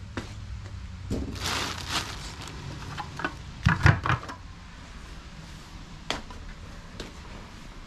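Handling noise from rummaging through cardboard boxes and plastic-bagged parts: rustling about a second in, a few sharp knocks with a heavier thump around four seconds, then scattered clicks, over a low steady hum.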